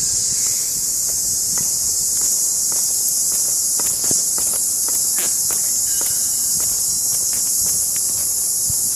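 A steady, high-pitched drone from a chorus of insects in the trees, with light footsteps on a path ticking underneath.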